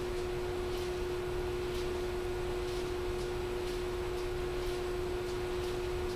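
A steady single-pitched hum, likely from cleanroom machinery, with a faint hiss repeating about once a second.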